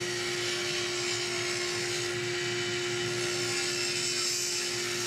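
SawStop table saw running steadily with a constant hum, cutting a groove along a wooden corner post.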